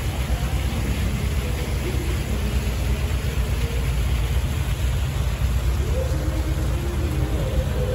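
A steady low rumble with an even hiss over it, with faint pitched tones rising out of it in the second half.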